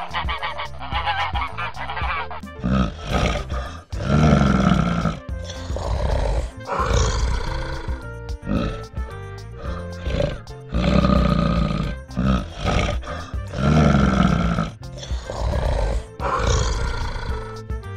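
Geese honking briefly, then a deep growl repeated over and over, a few seconds apart and nearly identical each time, dubbed over black-bear footage, with background music.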